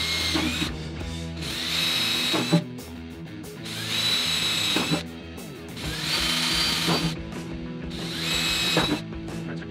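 Small cordless drill boring pilot holes in the sheet-steel top of a 1956 Volkswagen Beetle fuel tank. It runs in five short bursts of about a second each, each with a steady high whine.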